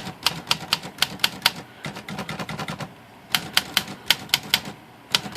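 Smith Corona Skyriter manual portable typewriter being typed on in quick runs of sharp key strikes, with a short lull in the middle and another pause near the end. It is typed with the shift lock set, to test a shift lock latch that tends to snap up by itself.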